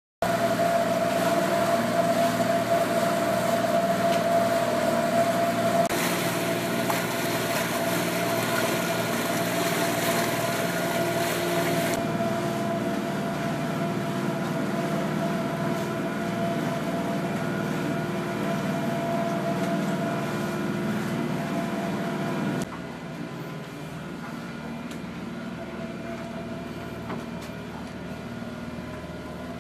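Steady engine hum aboard a sailing catamaran, a mix of fixed tones over a noisy rumble. The sound changes abruptly a few times and drops in level about 23 seconds in.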